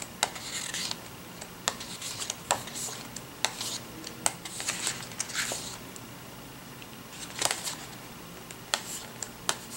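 Pages of a sticker book being flipped and handled: several papery swishes with sharp ticks and rustles scattered between them.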